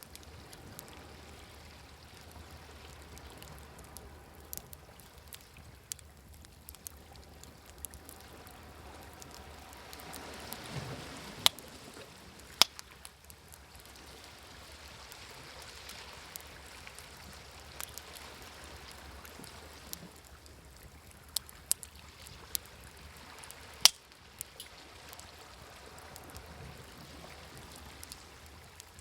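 Wood fire crackling, with sharp pops scattered throughout, the loudest three coming about a third of the way in, just after, and near the end. Under it a soft wash of sea waves, swelling around ten seconds in and again a few seconds later.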